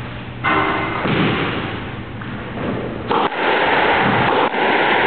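Squash ball struck and hitting the court walls twice, about half a second in and again about three seconds in, each impact ringing on in the court's echo.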